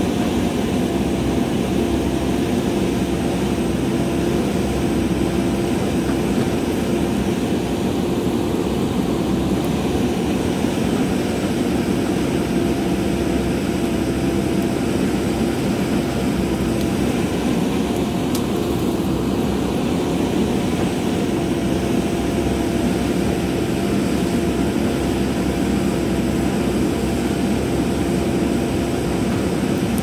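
JCB backhoe loader's diesel engine running steadily as the backhoe arm digs into rocky hillside soil.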